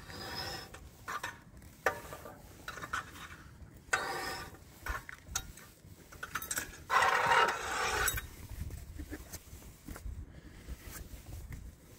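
Rear wheel of a 2022 Honda Ridgeline spinning while jacked up, with scraping and clicking from inside the hub area that comes and goes in repeated bursts, loudest about seven seconds in. The cause is a chunk of metal loose inside the parking brake drum, not a failing wheel bearing.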